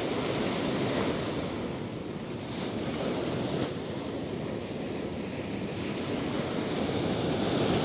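Sea surf washing in slow swells, with strong wind buffeting the microphone.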